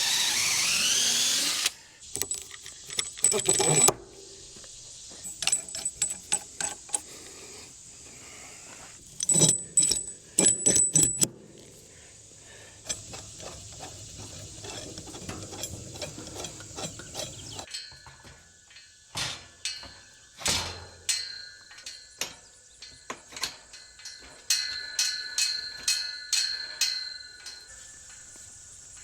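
A cordless drill driving a screw, its whine sweeping in pitch, stops about two seconds in; then a long run of scattered sharp clicks and knocks. In the second half, insects chirp in thin, high, pulsing trills.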